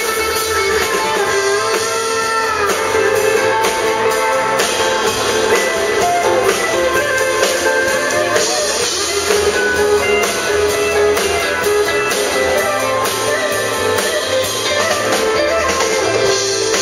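Live country band playing: electric and acoustic guitars over a drum kit, with a few bent notes about two seconds in.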